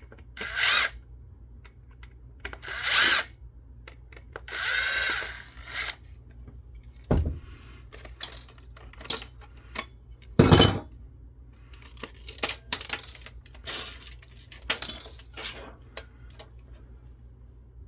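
Several short runs of a power drill-driver backing out screws, the longest lasting over a second, with clicks and knocks of metal parts being handled in between.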